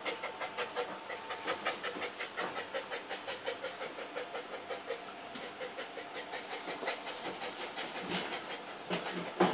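Pregnant dog panting rapidly and evenly, about five breaths a second.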